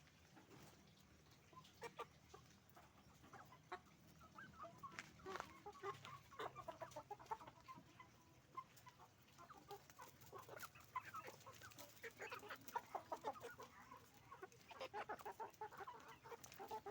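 A flock of chickens clucking, with many short overlapping calls. It is faint and sparse at first and grows busier and louder after a few seconds.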